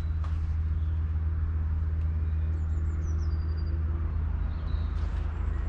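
Valtra N91's 4.4-litre four-cylinder diesel engine idling with a steady low hum.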